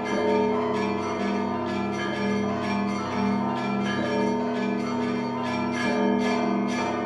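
Church bells being rung together in a fast, dense peal: many strokes a second over a deep, steady hum from the largest bell. The striking stops at the very end, leaving the bells ringing on.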